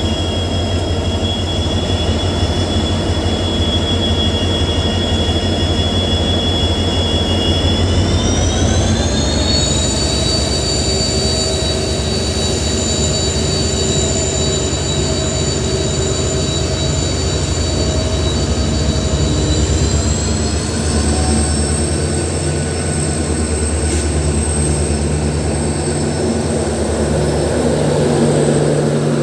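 EMD WDP4D diesel locomotive running, its turbocharged two-stroke engine making a loud, steady high-pitched hum over a low rumble. The whine rises in pitch twice, about a third of the way in and again about two-thirds in, as the engine speeds up.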